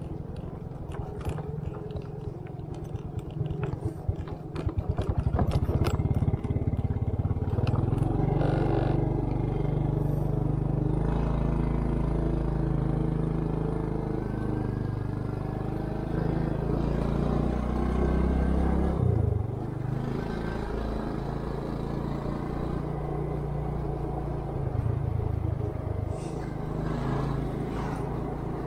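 Small motor scooter engine running as it is ridden, with rattling clatter over rough road in the first few seconds. The engine grows louder about six seconds in as it speeds up, and eases off briefly about two-thirds of the way through.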